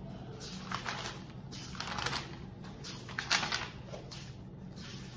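A stack of printed paper sheets being thumbed through page by page, each page turning with a short papery rustle, about two a second.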